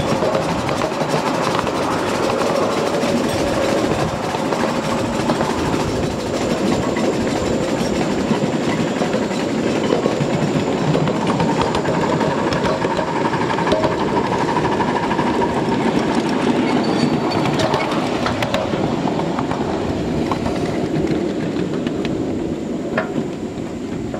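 Ride-on scale live-steam train rolling along its small-gauge track, heard from one of the riding cars: a steady rumble and clatter of the cars' wheels on the rails.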